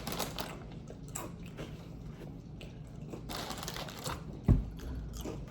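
Chewing and small crunching sounds of someone eating, with one dull thump a little after four seconds in.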